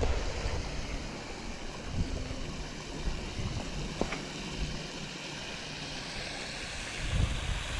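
Fountain jet splashing into its round pool: a steady hiss of falling water, with wind rumbling on the microphone, stronger near the end.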